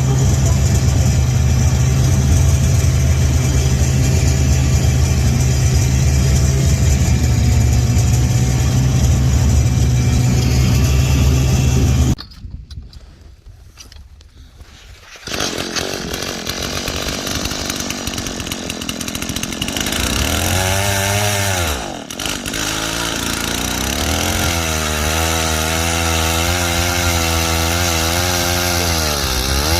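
Small snowmobile engine running at a steady speed, then dropping away for about three seconds near the middle. When it returns, its pitch rises and falls several times as the throttle is opened and eased off.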